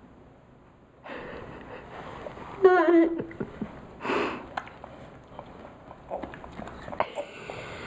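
A young child's short, wavering vocal sound about three seconds in, followed a second later by a breathy sniff-like burst, with scattered small clicks and faint hiss around them.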